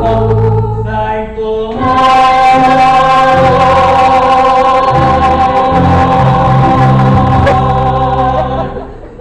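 Full chorus of stage-musical cast singing the end of a gospel-style show tune. From about two seconds in they hold a long, loud final chord, which drops away near the end.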